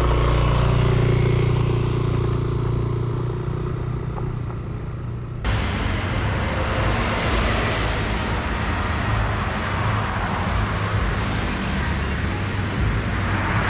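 Motor scooter engine running steadily. About five and a half seconds in it changes abruptly to a steady rush of wind and road noise as the scooter is ridden.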